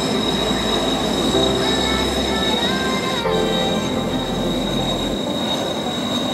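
Kawasaki T-4 jet trainers taxiing, their twin turbofan engines making a steady high-pitched whine. About two and a half seconds in, a tone rises and falls back.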